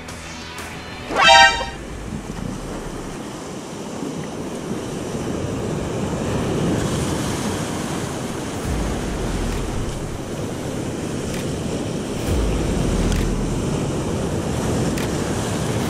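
Rough surf washing and breaking over coastal rocks, a steady noisy rush with deep rumbles swelling several times in the second half. Just over a second in, a brief, very loud horn-like toot, slightly rising in pitch, sounds over it.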